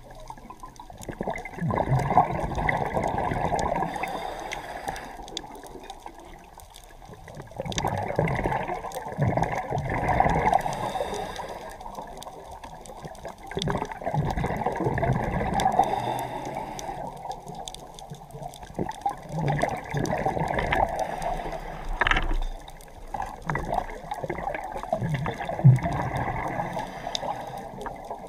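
A scuba diver breathing through a regulator underwater. Exhaled bubbles gurgle in about five rounds, some five to six seconds apart, with quieter stretches of inhalation between them.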